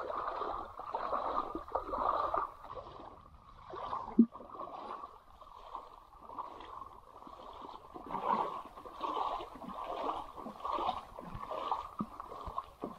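Footsteps wading through shallow water, a slosh and splash with each stride, about one or two a second. One sharp knock about four seconds in.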